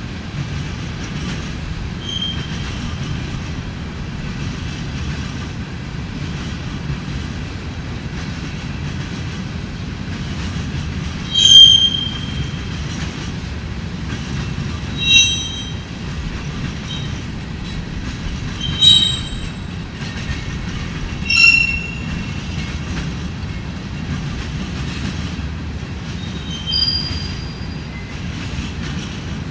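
Empty rock hopper cars of a freight train rolling past with a steady low rumble, broken by about five short high-pitched wheel squeals a few seconds apart, the loudest about a third of the way in.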